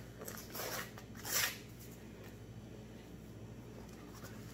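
Cardboard box of cornstarch being picked and torn at by hand to get its top open: a few short scratchy rasps in the first second and a half, the loudest about a second in, then faint rustling.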